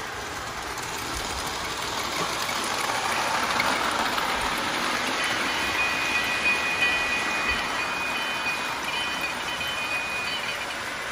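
Model train running along its track: a steady rolling rattle of wheels on rails that grows louder as the train passes close by, with a thin high whine coming and going in the second half.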